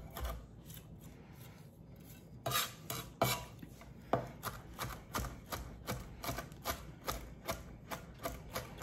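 Chef's knife chopping anchovies into garlic and salt on an end-grain wooden cutting board. The blade knocks on the board in quick repeated strokes, a few scattered ones at first, then about three a second from a couple of seconds in.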